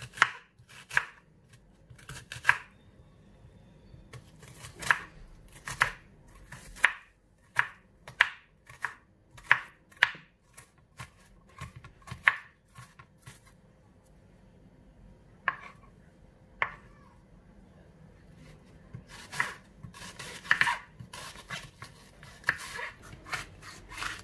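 Chef's knife dicing an onion on a wooden cutting board: sharp knocks of the blade hitting the board, about one a second with short pauses, coming quicker near the end.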